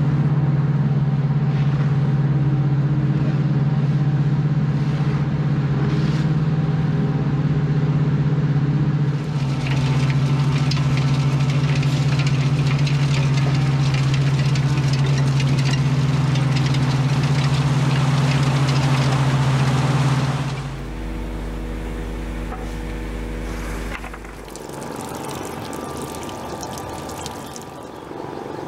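Heavy diesel engine of a slipform concrete curbing machine running steadily at a constant pitch as it works. About two-thirds of the way through it gives way to a quieter, lower machine hum.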